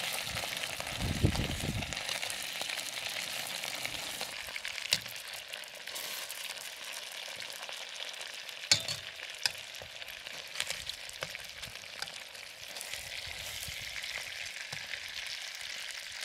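Boneless chicken pieces sizzling steadily in hot oil in a stainless steel wok, with a few sharp clicks of metal tongs against the pan as the pieces are turned.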